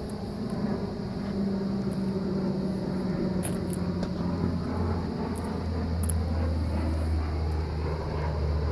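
1976 Honda CB550's air-cooled inline four-cylinder engine idling steadily, its low note growing stronger about halfway through.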